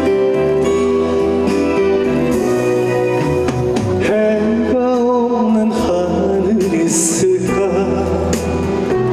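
Trot song played over a stage sound system, its accompaniment with a singing voice over it.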